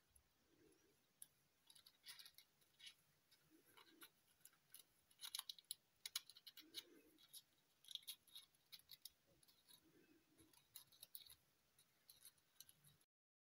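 Faint crinkling and clicking of stiff, shiny metallic paper as modular origami units are pressed and tucked together into a cube, with a few soft low bumps of fingers on the piece. The sound cuts off suddenly near the end.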